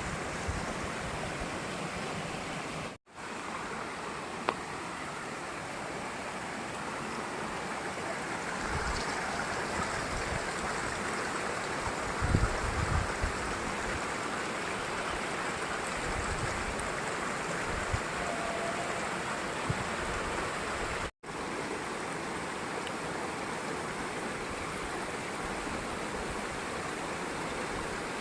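Waterfall water rushing in a steady hiss, cutting out for an instant twice, near the start and about three quarters through. A few low thumps come about twelve seconds in.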